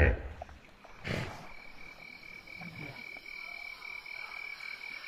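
A steady high-pitched chirping call, pulsing about four or five times a second, starts about a second and a half in and carries on, like dusk frogs or insects. A short rustle comes about a second in.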